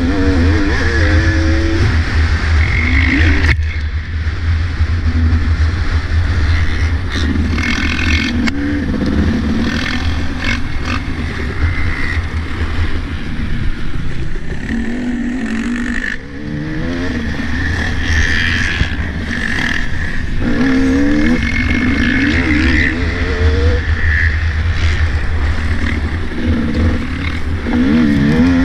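Two-stroke motocross bike ridden hard, its engine revving up and falling off again and again through the gears and corners, with sharp throttle-offs about three and a half seconds in and again around sixteen seconds. A heavy low wind rumble on the helmet-camera microphone runs underneath.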